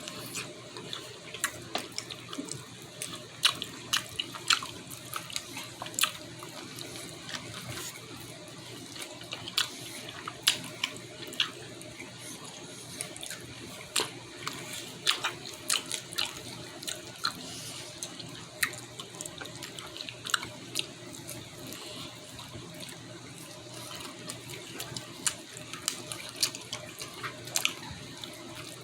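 Close-up eating sounds: wet chewing and irregular smacking clicks of someone gnawing on smoked pork ribs, over a steady background hiss.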